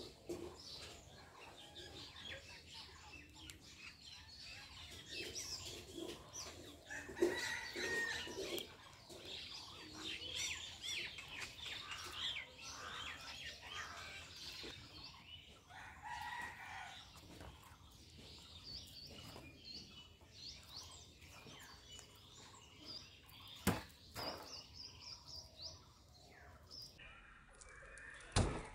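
Birds chirping all through, mixed with chickens clucking and a rooster crowing. There are two sharp knocks, one about 24 seconds in and another near the end.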